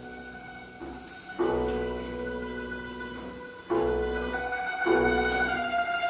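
Background music: slow instrumental piece with sustained string-like chords that change every second or two, growing louder near the middle.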